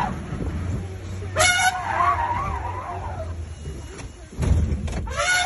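Open safari jeep's engine running as it drives off, with two loud, high-pitched wavering cries over it, one about a second and a half in and another near the end.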